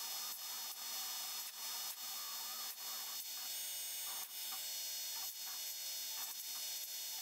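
Small CNC machine milling: a steady high whine from the spindle with light regular clicks, and from a few seconds in, stepper-motor tones that start and stop in short blocks as the axes move. The spindle is driving a spring bit that scrapes solder mask off a circuit board.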